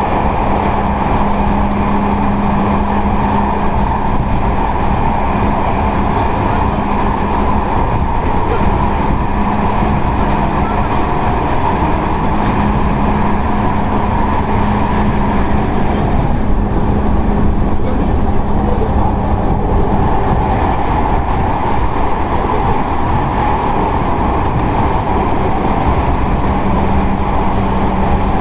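JR West 221 series electric train, with field-added excitation control of its traction motors, running along the line: a steady rumble of wheels on rail with a low, even hum that drops out for several seconds in the latter part and then returns.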